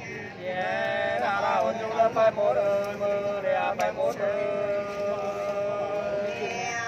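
Two men singing Nùng sli, an unaccompanied two-voice folk song, in long held notes that waver slowly. The singing starts about half a second in.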